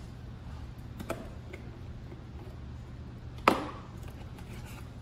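Hands opening and handling a cardboard amplifier box on a counter: a small click about a second in and a sharp knock about three and a half seconds in, over a steady low hum.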